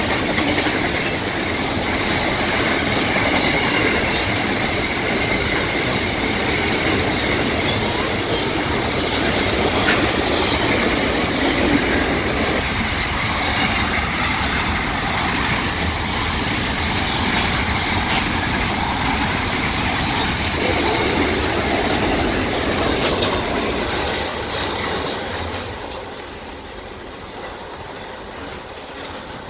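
SCT freight train's wagons rolling past at speed: a steady loud rumble of wheels on rail with clatter and a thin high wheel squeal. The noise falls away near the end as the last wagons pass.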